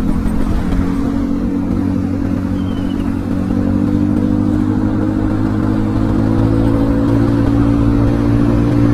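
Motor scooter's small single-cylinder engine running under way, its note slowly rising as it gathers speed from about three seconds in, over a low rumble of wind on the helmet microphone.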